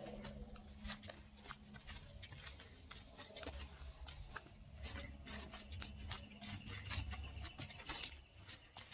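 Footsteps on a dirt hiking trail: irregular crackling clicks several times a second over a low rumble.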